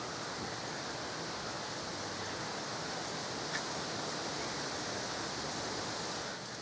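Steady hiss of outdoor background noise, with one light click about three and a half seconds in.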